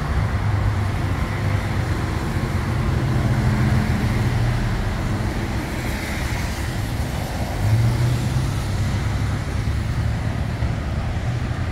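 Road traffic passing on wet pavement: a steady wash of car engines and tyre hiss that swells as vehicles go by.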